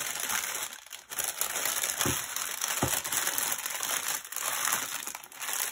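Clear plastic packaging crinkling as small bags of diamond-painting drills are pushed back into a plastic packet, with a couple of short pauses.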